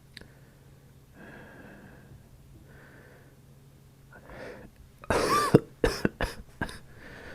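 A sick man's soft breaths, then a quick inhale and a coughing fit about five seconds in: one loud, drawn-out cough followed by several short, sharp ones. The cough is a real one, from a cold with a tickling throat.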